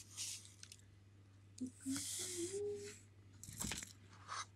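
A cat moving right against the microphone: close rustling of fur and cardboard in short bursts, with small clicks from its collar tag and one louder bump about three and a half seconds in. A short faint murmur sounds about two seconds in.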